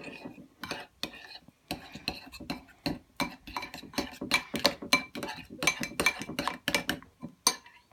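A utensil stirring thick white glue in a bowl, making a quick, uneven run of clinks and scrapes against the bowl.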